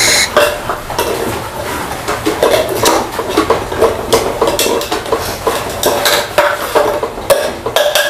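A pet crow knocking and tapping a green toy stick against a plastic feeding dish and the wooden boards, making many irregular clattering taps.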